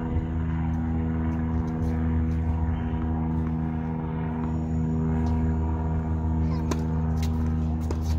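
Steady, deep engine hum with an even, unchanging drone, and a few sharp knocks from the tennis ball near the end.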